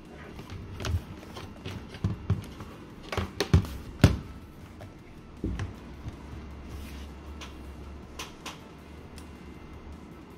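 Handling knocks and clicks as a laptop is turned over, set down on a table and opened, with the sharpest knock about four seconds in. A thump follows about five and a half seconds in, then a faint steady low hum.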